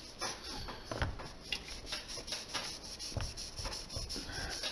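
A cloth rag rubbing and wiping over the head of a vintage Singer Red Eye sewing machine, wiping off Gojo hand cleaner: an irregular run of short scrubbing strokes, with a few soft knocks of the machine being handled about a second in and again around three seconds in.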